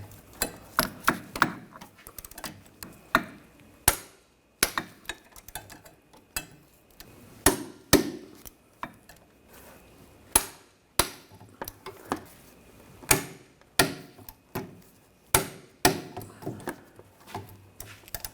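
Torque wrench and socket working the rear hub bearing bolts up to 65 foot-pounds: a string of sharp metallic clicks and clinks, irregularly spaced, a few of them much louder than the rest.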